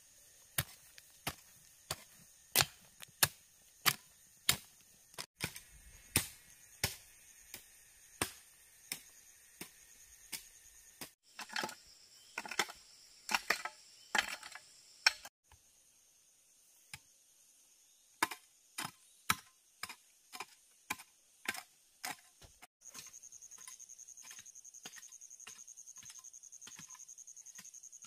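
A hand hoe's blade striking and chopping into dry earth, in quick regular strokes of roughly two a second, some in faster bunches, as the ground is dug out for a house foundation. Insects buzz steadily in the background, more loudly near the end.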